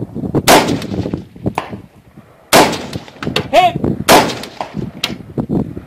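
Colt LE6920 AR-15 carbine, 5.56 mm, with a PWS FCS556 muzzle brake, firing three loud, sharp shots spaced a second or two apart, with fainter reports in between. A short ringing tone follows about a second after the second loud shot.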